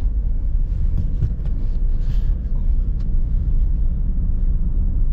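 Steady low rumble of a Toyota car driving, heard inside the cabin.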